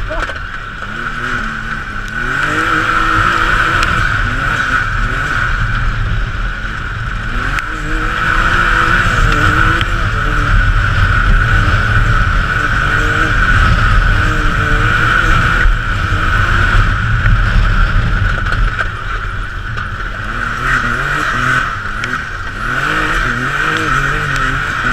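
Can-Am Maverick X3 side-by-side's three-cylinder engine running under load on a rough dirt trail, heard from inside the cabin, its revs rising and falling with the throttle over a steady high whine.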